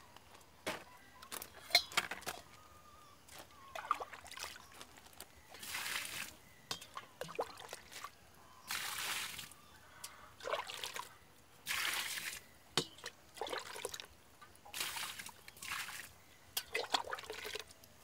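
Water pouring and splashing in short bursts about a second long, repeated every two to three seconds, with small knocks and clicks between.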